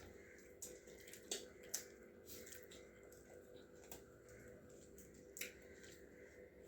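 Faint eating sounds: scattered small crunches and wet mouth clicks of someone chewing fast food, over a low steady hum.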